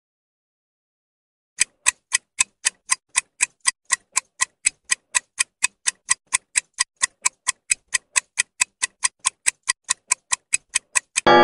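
Clock-tick sound effect of a quiz countdown timer, evenly spaced sharp ticks at about four a second, starting after a second and a half of silence. A loud ringing chime breaks in at the very end.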